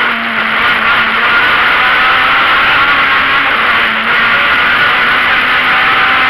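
Rally car engine running hard at high revs, heard from inside the cabin, its pitch wavering up and down with the throttle over a steady rush of road noise.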